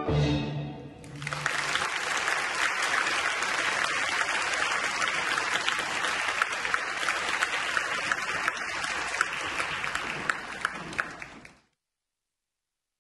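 The last chord of orchestral music dies away, then a theatre audience applauds steadily for about ten seconds. The applause cuts off abruptly near the end.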